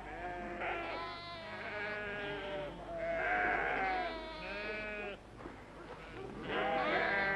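A flock of sheep bleating, several wavering calls overlapping one another, with a short lull a little after the middle before another bleat.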